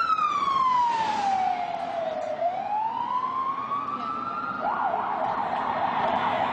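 Ambulance siren: a slow wail that falls for about two seconds and climbs back up, then switches to a rapid yelp for the last couple of seconds.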